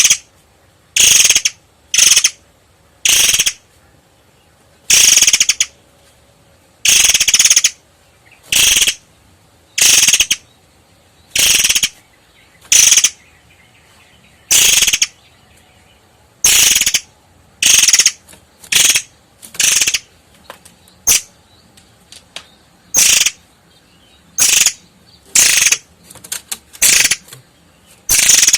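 Long-tailed sibia (murai air) singing: short, loud, high-pitched phrases repeated every one to two seconds, each under a second, coming closer together toward the end.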